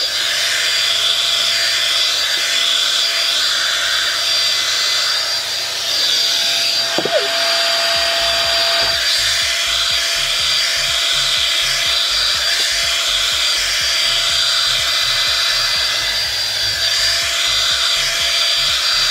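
Revlon One-Step hair dryer brush running on its low setting: a steady, obnoxiously loud rush of air with a constant high motor whine.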